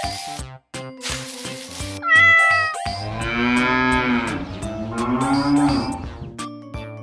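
Background music with a steady beat, broken about two seconds in by a short rising animal call and then two long drawn-out animal calls, cat- or cow-like.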